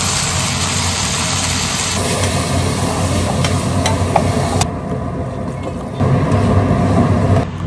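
Shrimp and chili sauce sizzling in a frying pan over a gas burner as it is stirred, with a few sharp clicks of the utensil against the pan, under a steady low hum. The sound changes abruptly several times.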